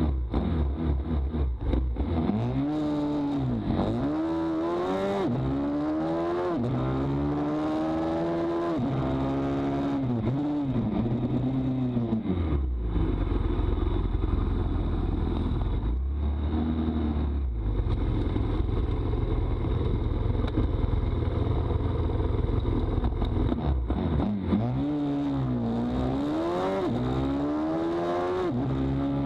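Pit bike's single-cylinder engine, ridden hard: it revs up and drops back again and again as the rider accelerates and changes gear, holds a steadier, lower note for a stretch in the middle, then revs up once more near the end.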